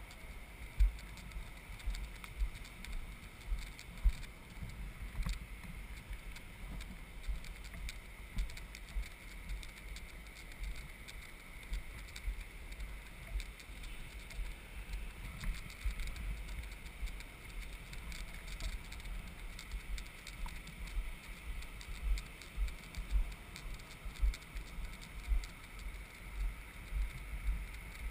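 Sand cart rolling over beach sand: irregular low bumps and knocks as it jolts over ruts and footprints, over a faint steady whir.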